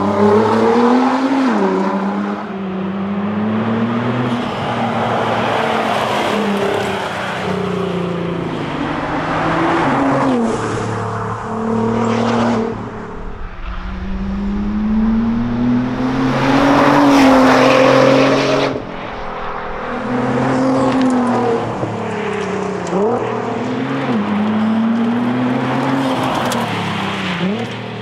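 Nissan R35 GT-R's twin-turbo V6 driven hard on a winding tarmac rally stage: the engine note repeatedly climbs through the revs and drops back with gear changes and lifts for corners. The sound changes abruptly a few times where separate shots are cut together.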